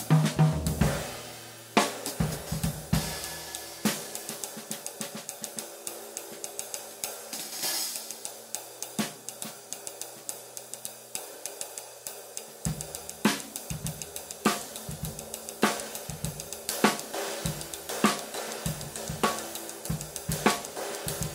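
Bosphorus Turk 19-inch flat sizzle ride played with a drumstick in a steady ride pattern, its rivets sizzling in a wash under the strokes. Bass drum of a kit underneath for the first few seconds and again from about halfway through.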